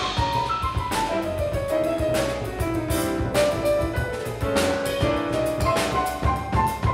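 Jazz piano trio playing live: a grand piano carrying a single-note melody over upright double bass and a drum kit with frequent cymbal and drum hits.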